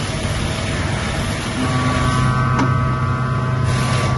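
Mazak FH-4800 horizontal machining center running with flood coolant: a steady hiss of coolant spray over the machine's hum, with a set of steady humming tones coming in about one and a half seconds in and a single click about halfway through.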